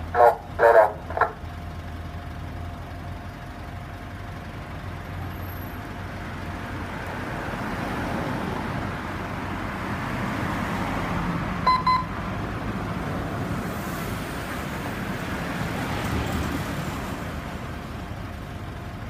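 Steady vehicle engine and traffic noise that swells a little in the middle. It opens with three short, loud pitched blasts in the first second, and two short electronic beeps come about twelve seconds in.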